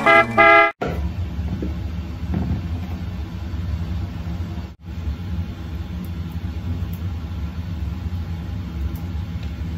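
A music jingle ends about a second in, followed by a steady low rumble of background noise that briefly cuts out near the middle.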